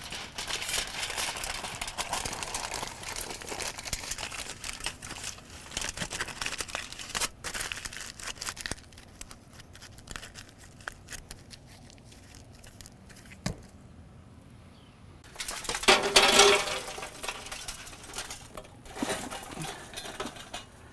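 Sheet of Reynolds Wrap non-stick aluminum foil crinkling and rustling as it is folded and pressed tightly around a potato, dense at first, then quieter, with a louder burst of crinkling about three quarters of the way through.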